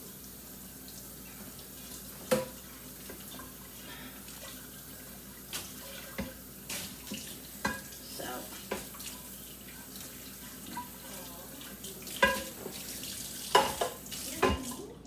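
Kitchen faucet running into a stainless steel sink while a pan is scrubbed with a dish brush, with scattered knocks of the pan against the sink. Near the end comes a louder clatter as the pan is set in the dish rack.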